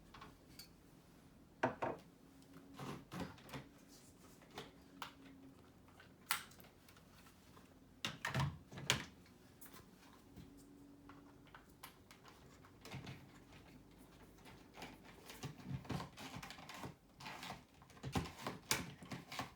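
Scattered clicks, knocks and light rattles of a plastic smoke detector being handled as the old unit is swapped for a new plug-in one. There is a faint low hum at times, and no alarm sounds.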